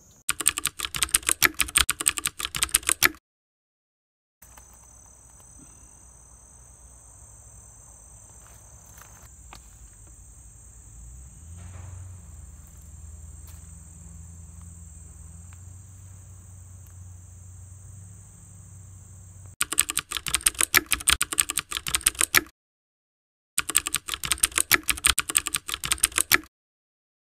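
Keyboard-typing sound effect, rapid clicks in three bursts of about three seconds each: one at the start and two near the end, going with on-screen text typing out. Between the bursts, a long stretch of outdoor garden sound with a steady high insect drone.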